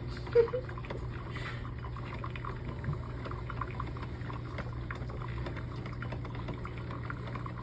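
Beautiful by Drew Barrymore drip coffeemaker brewing: hot water and coffee trickling and spluttering into the carafe over a steady low hum. A brief sharp sound comes about half a second in.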